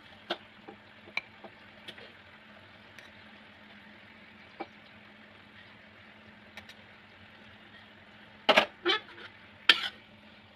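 Stainless steel tongs clicking and tapping against a wok and plate as pork ribs are lifted out, then a metal spatula clanking and scraping in the wok near the end, the loudest sounds. A steady low hum runs underneath.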